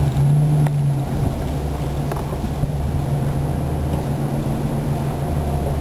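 Car engine and road noise heard from inside the cabin while driving slowly, a steady low drone that is a little louder in the first second.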